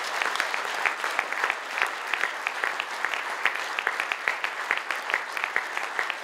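Audience applauding: a dense, steady mass of clapping with single sharp claps standing out.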